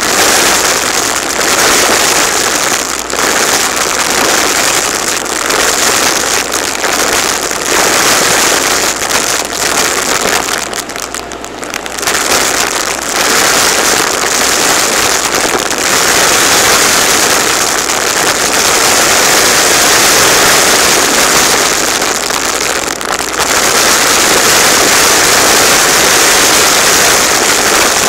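Shark DuoClean Lift-Away upright vacuum running steadily with a high whine, picking up confetti off a laminate floor, with a brief dip in level about eleven seconds in.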